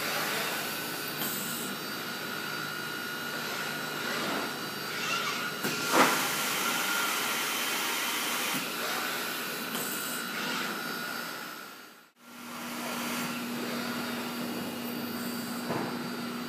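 Robotic truck-unloading system running: a steady machine hiss with a thin high whine, and one sharp knock about six seconds in. After a brief drop-out near the twelve-second mark a steady low hum joins the hiss.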